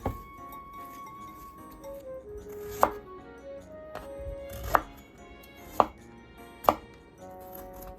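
Kitchen knife chopping food on a cutting board: five separate, unhurried strokes at uneven intervals, over soft background music.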